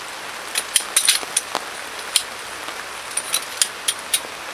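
Metal frame pole sections of a Naturehike camping cot clicking and clacking as they are fitted together, about a dozen sharp, irregular clicks. Steady rain hiss underneath.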